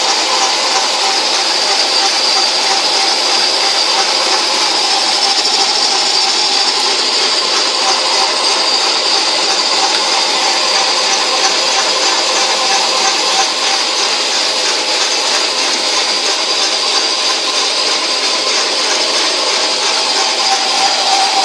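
Metal lathe running steadily, turning a length of 1 1/4-inch steel pipe, with a constant whine and a high hiss.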